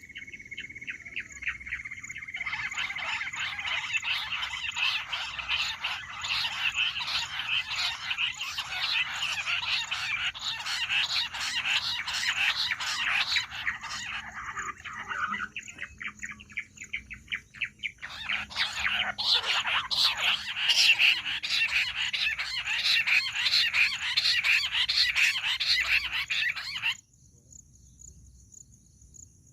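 Bush quail calling in a fast, dense chattering chorus of many rapid chirps. It comes in two long bouts with a short pause between them, and the second bout cuts off suddenly near the end.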